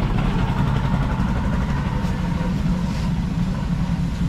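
A steady, low, engine-like drone with no breaks or changes.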